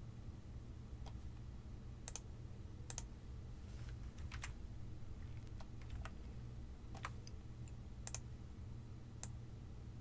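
Scattered single clicks from a computer mouse and keyboard being worked, about one a second, over a faint steady low hum.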